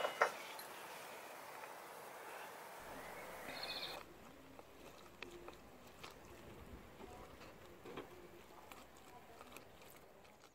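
Lime halves twisted and pressed on a small plastic hand citrus juicer, with faint squishing and scraping and sparse small clicks, after a couple of sharp knocks at the very start.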